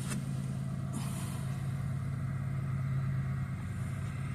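An engine running steadily with a low, even hum, and a couple of faint clicks near the start.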